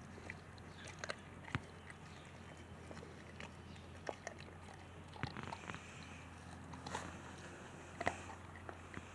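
A Boerboel puppy chewing a raw chicken leg quarter, with irregular sharp cracks and crunches of bone between its teeth.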